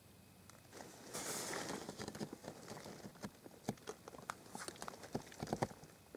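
Close handling noise: rustling with scattered light knocks and clicks as a camera and phone are moved about by hand. The sound starts about a second in, and there is a cluster of sharper knocks near the end.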